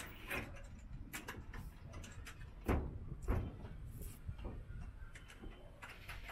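Scattered light metal clicks and knocks as a solar panel's frame is handled and fitted onto its roof mounting rail, with two louder knocks about three seconds in.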